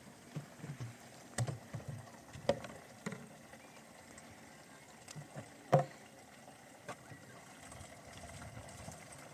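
Irregular knocks and light clatter, a few sharp ones among softer taps, the loudest a little under six seconds in, thinning out towards the end.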